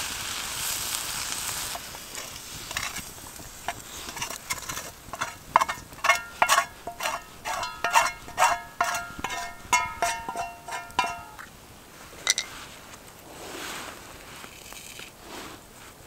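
A spoon scraping and knocking against a metal frying pan as food is emptied from it, about a dozen quick clanks with the pan ringing after each. Before that the fried vegetables sizzle faintly and die away.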